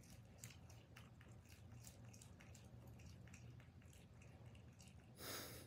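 Faint, quick, irregular clicks of a black-tailed prairie dog chewing a fresh basil leaf held in its paws. A short, louder hiss comes about five seconds in.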